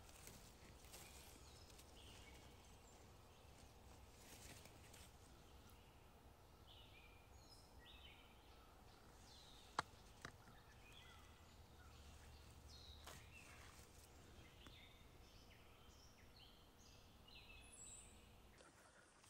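Quiet forest floor: faint rustling of dry leaves and grass under a hand, with short high bird chirps repeating through the middle and later part. A sharp click sounds twice about ten seconds in.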